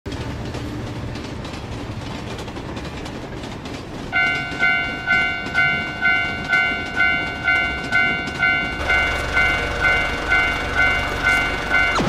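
A train rumbling and clacking along the rails. About four seconds in, a Japanese level-crossing warning bell starts ringing, a repeating 'kan-kan' ding about twice a second. Near nine seconds a low steady hum joins it.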